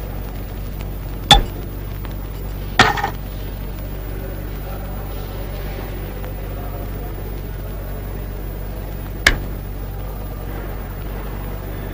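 Three sharp clinks of a drinking glass and tray being handled, the second followed by a short rattle, over a steady low hum.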